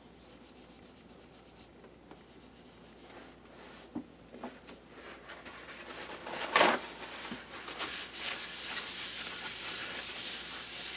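Handling noise from working on a laptop: a few clicks and one sharp knock partway through, then a steady scraping, rubbing sound through the second half.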